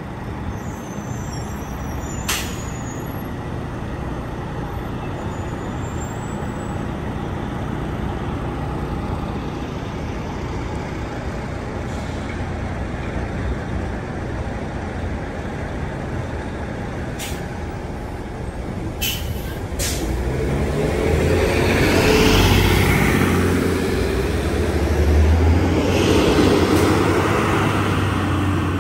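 Diesel city buses and an MCI highway commuter coach running at low speed through an intersection, with a few short air-brake hisses. The engine sound grows louder in the last third as a coach pulls through the turn close by.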